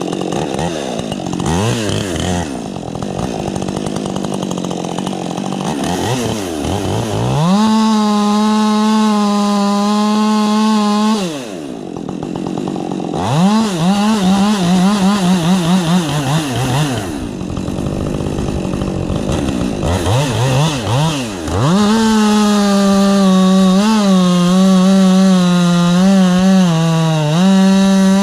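Husqvarna 550 XP Mark II two-stroke chainsaw revving up and down. It is held at full throttle for several seconds at a time, about three times, its pitch wavering and sagging under load as it cuts, and it drops back toward idle in between.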